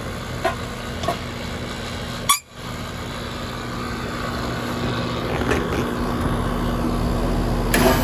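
Outdoor air-conditioning condenser units running with a steady electrical hum from the compressor and fan. The sound drops out briefly a little over two seconds in. Near the end a cordless drill gives a short burst on a panel screw.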